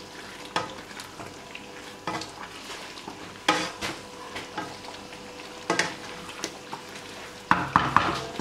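Beef karahi sizzling in the pan while it is stirred, with scattered sharp clinks of the utensil against the karahi and a quick run of scrapes and knocks near the end.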